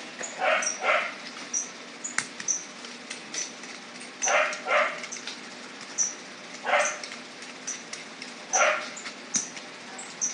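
Animal calls: short sharp calls, often two in quick succession, every couple of seconds, with quick high chirps in between.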